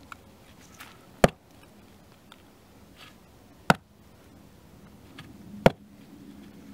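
Schrade SCHF42 knife's 1095 carbon-steel tip stabbed hard into a wooden board at a knot, three sharp thwacks about two seconds apart. This is a test of the tip's strength.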